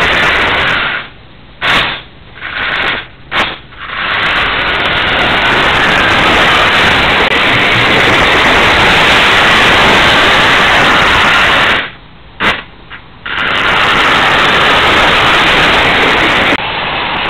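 Märklin model train running along its metal M-track, heard close up as a loud, steady rushing whir of motor and wheels. It cuts out briefly several times, once early on and again about two-thirds of the way through.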